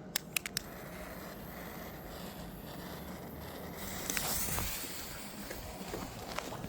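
A few sharp clicks in quick succession, then steady outdoor background noise with a short hiss swelling about four seconds in.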